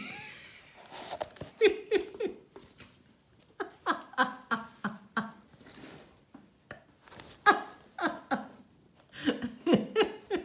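Cat and puppy paws batting and scraping at a cardboard box on a hard floor, a run of short knocks and scuffs, with short puppy grunts and squeaks in several clusters.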